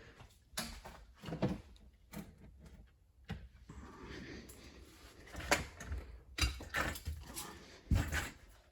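Irregular knocks, clicks and thumps of someone walking indoors and handling a door, the loudest about five and a half and eight seconds in.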